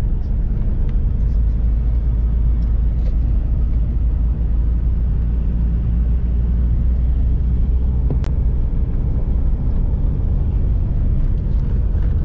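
Four-wheel drive travelling along an unsealed dirt road, heard from inside the cabin: steady, low road and engine noise from the tyres on the gravel surface. A single sharp click about eight seconds in.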